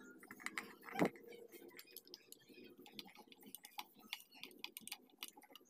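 Screwdriver working the screws out of a TOA horn speaker's metal driver unit: scattered light metal clicks and ticks, with one louder knock about a second in.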